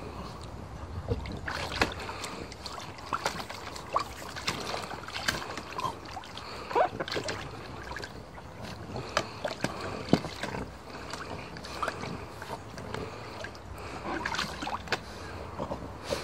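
Shallow water splashing and sloshing in a plastic paddling pool as a dog rolls and wriggles in it, in many short, irregular splashes.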